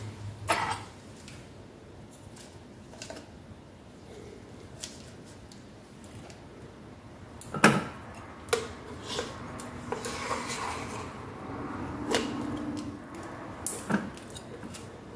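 Scattered clicks and knocks from a metal spoon and a plastic tub being handled as cream is scooped out; the loudest is a sharp knock about halfway through.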